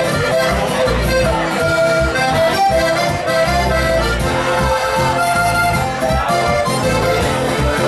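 Live band playing Alpine folk-pop led by a Steirische Harmonika (diatonic button accordion), with sustained melody notes over repeating bass notes.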